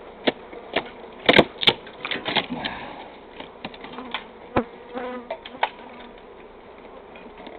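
A large honeybee colony buzzing steadily, with irregular sharp clicks and knocks from the comb and hive being worked, loudest about a second and a half in.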